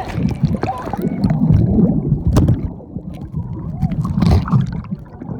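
Muffled, irregular rumbling and knocking from a phone in a waterproof case strapped to a life jacket, jostled as the raft moves on the river, with water sloshing and gurgling around the raft and scattered sharp clicks.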